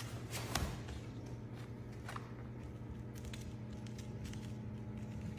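A small puppy's claws tapping and scuffling on a hardwood floor as it scrambles out of a fabric play tunnel and runs. Scattered light ticks, the loudest about half a second in, over a steady low hum.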